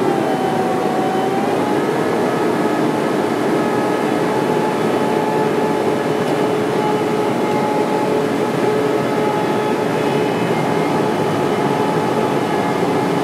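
In-flight noise of a KC-10A Extender tanker heard from inside the aircraft: steady engine and airflow noise with several steady whining tones. One tone dips slightly in pitch in the first second or two.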